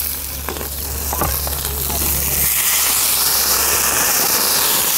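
A hot pan hissing and sizzling with steam after water is poured in. The hiss grows louder about two seconds in and then holds steady.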